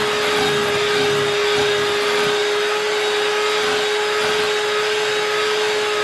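Handheld electric mixer running at a steady speed, its beaters whipping cream cheese frosting in a glass bowl: a steady motor whine over an even hiss.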